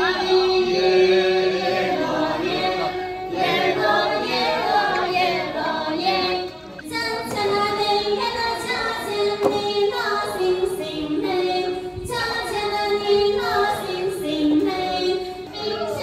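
A group of women's voices singing a Dong toasting song together in long held phrases, with a brief pause about six and a half seconds in.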